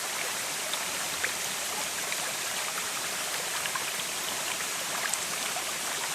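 Waterfall: water pouring and splashing at a steady rush, with small droplet splashes scattered through it.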